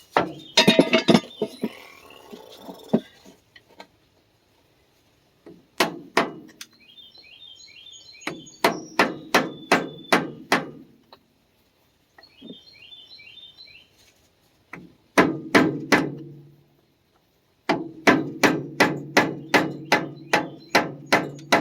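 Hammer blows on the steel front axle of a Ford 1910 tractor, knocking a part loose where its alignment pins are frozen. The strikes come in several bursts of quick, ringing metallic blows, about two to three a second, with the longest run near the end.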